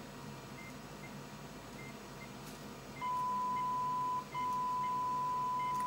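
A steady 1 kHz test tone comes on about halfway through, drops out briefly once, then resumes, as a Wavetek Stabilock 4015 communications monitor starts measuring a receiver's audio frequency response. Faint short high beeps repeat throughout.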